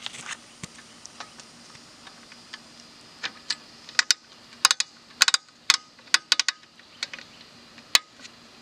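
Scattered sharp metal clicks and clinks, bunched together from about four to six and a half seconds in, as a hinged metal mount clamp is worked and latched around a pipe.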